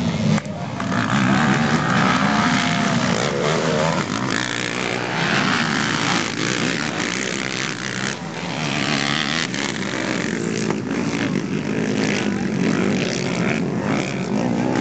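Several junior racing quads (ATVs) running on a race track, their small engines buzzing and revving with pitch changing as they pass.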